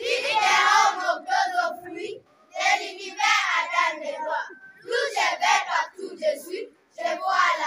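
A group of children reciting a French poem together in unison, chanting it in rhythmic phrases with short pauses between lines.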